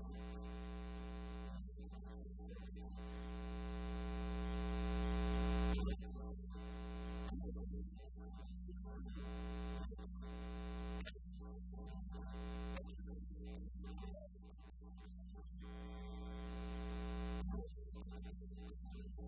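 Electrical mains hum with a buzz of many overtones. It swells louder over a few seconds and drops off suddenly, about six seconds in and again near the end.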